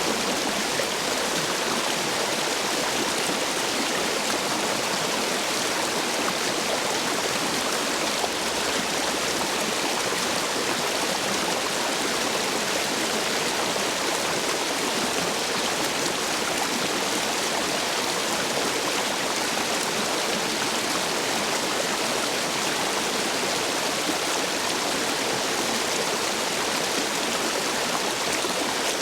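Stream water rushing steadily over and between stepping stones, the flow running high after heavy rain.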